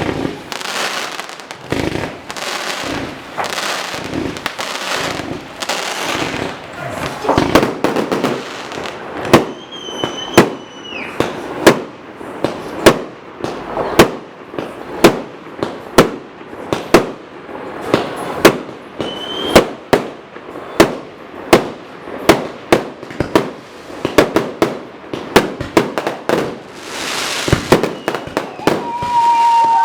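Fireworks going off: crackling, hissing bursts at first, then from about nine seconds in a run of loud bangs at roughly one a second, with a few short whistles among them.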